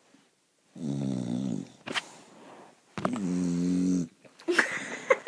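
A dog snoring loudly: two long snores about two seconds apart.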